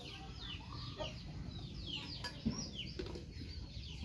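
Chickens clucking, with many short, high chirps that fall in pitch one after another, and a light knock about two and a half seconds in.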